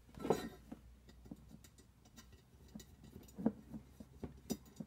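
Light metallic clicks and ticks, scattered and irregular, as a bicycle spoke is fitted through a lowrider wheel's rim hole and a spoke nipple is handled and threaded onto it by hand.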